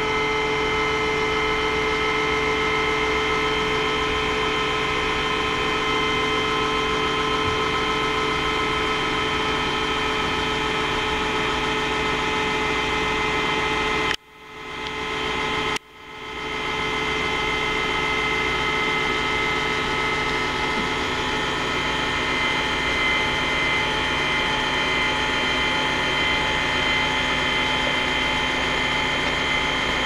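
12 V DC electric linear actuator running as it extends its rod, its geared motor giving a steady whine. The sound cuts out sharply twice about halfway through and builds back up each time.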